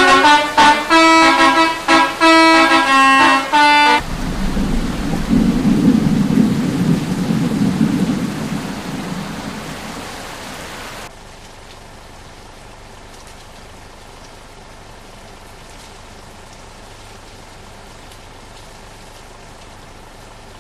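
Indonesian bus 'telolet' multi-tone air horn playing a quick tune of short notes, which stops abruptly about four seconds in. The bus's engine and tyres then rumble loudly as it goes by and fade away, leaving a steady faint hiss after a sudden drop in level.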